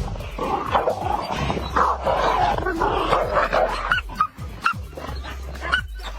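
A dog barking and yelping repeatedly, with music playing underneath.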